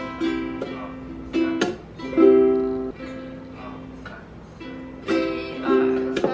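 Ukulele chords strummed in short, repeated phrases, each strum ringing out and fading before the next, with several sharp strums close together about five seconds in.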